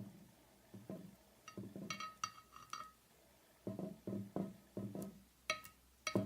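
Light clinks and soft knocks of a utensil against a hard bowl or container while slime and makeup are mixed. They come in several quick clusters, some with a brief ringing note.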